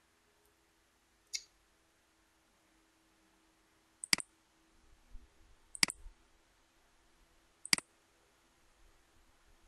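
Computer mouse button clicks: one faint click about a second in, then three sharp clicks a little under two seconds apart, each a quick press-and-release pair.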